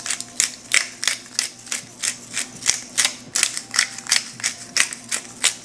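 Hand-twisted pepper grinder cracking black peppercorns: a steady run of quick, sharp clicks, about four or five a second.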